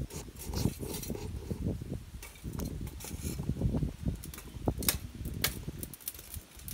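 Scattered clinks and knocks of metal cookware being handled, over a low rumble on the microphone.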